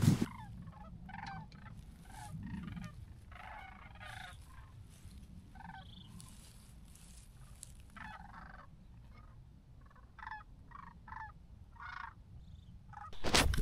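Sandhill cranes calling: a long string of short calls, some overlapping, over a steady low rumble.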